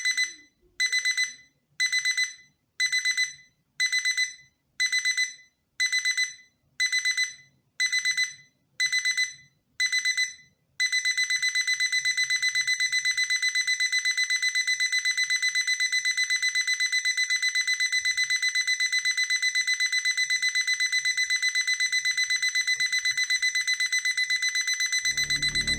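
Projection clock's electronic alarm beeping at a high pitch: short bursts of rapid beeps about once a second, then after about eleven seconds the beeping runs on without pauses. A low tune starts under it just before the end.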